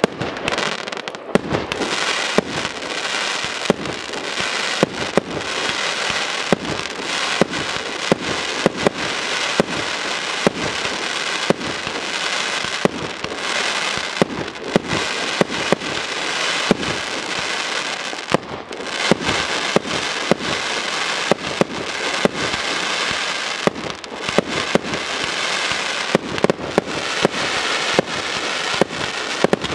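Aerial fireworks display going off continuously: frequent sharp bangs of shells bursting over a steady crackling hiss, with a brief lull about two-thirds of the way through.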